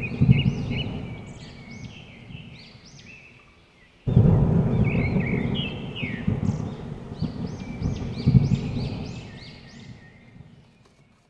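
A low rumble with many short, arching high chirps over it, like birds calling. It drops away just before four seconds in, comes back abruptly and loud, and fades out near the end.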